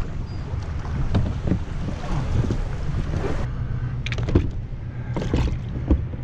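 Wind buffeting the microphone, with scattered knocks and clicks of gear being handled on a plastic fishing kayak, including the Hobie MirageDrive pedal unit and its coiled leash.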